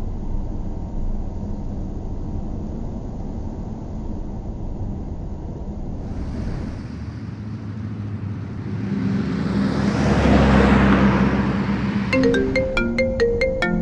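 Steady low road-and-engine rumble inside a moving car's cabin, with a whooshing swell that builds and fades through the middle. About two seconds before the end, a mobile phone starts ringing with a short marimba-like ringtone melody.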